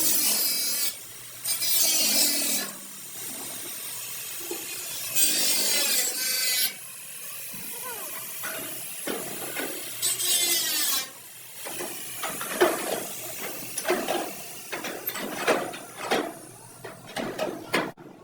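Hand-worked metal bodywork: four long rasping strokes, like a body file or sanding block drawn across the car's panel, then a run of sharp metal taps and knocks that grows quicker toward the end, like panel-beating with a hammer.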